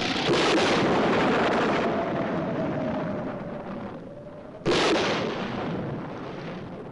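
Thunder: a loud clap that rolls on and fades over a couple of seconds, then a second sharp clap about four and a half seconds in, over a storm wind.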